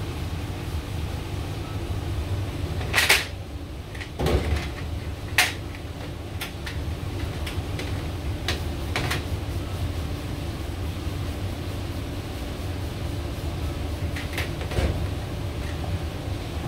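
Steady low hum of kitchen machinery, broken by a handful of sharp knocks and clatters as metal grease filter grills are handled and set into plastic dish racks, the loudest about three and five seconds in.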